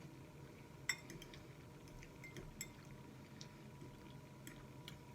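Eating utensils clinking lightly against a plate of spaghetti: a scattered handful of small clicks, the sharpest about a second in.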